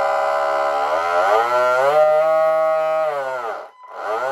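The RC boat's electric drive motor, run on the transmitter throttle through its speed controller. It holds a steady whine, then rises in pitch about a second in, holds higher, and falls away, and a second rise begins near the end.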